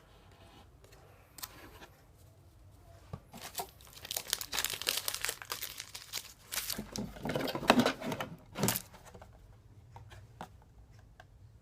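Wrapper of a football trading-card pack being torn open and crinkled, a run of crackling from about three and a half seconds in until about nine seconds.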